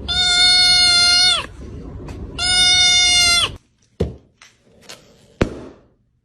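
Two long, steady blasts of a car horn, each about a second and a half, with a low rumble underneath, followed by two sharp knocks.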